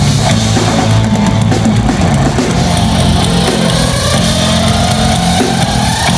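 Live rock band playing loudly, with drum kit and electric guitar, and a long rising pitch sweep over the last few seconds.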